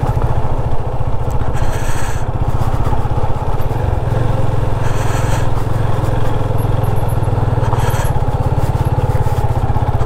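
Yamaha FZ25's single-cylinder engine running at low speed over a rough dirt track, its note shifting about four seconds in. Three brief bursts of hissing noise cut in over it.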